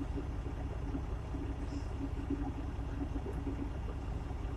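Steady low rumble of a truck's engine running, heard from inside the cab.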